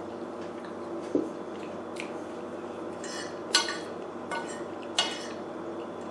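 A fork clinking and scraping against a plate of pasta, a few separate sharp clinks, over a steady background hum.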